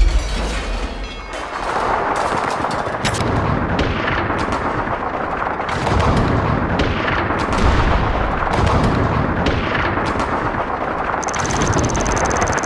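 Gunfire sound effect: a dense, continuous barrage of cracks and bangs. A thin, steady high whine joins about eleven seconds in.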